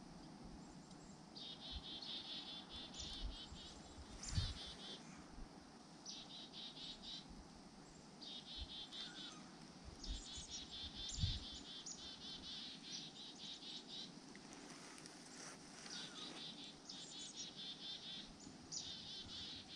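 Small songbirds twittering in short bouts of quick, high trills, repeated every second or two. Two dull low thumps, about four and eleven seconds in, are the loudest sounds.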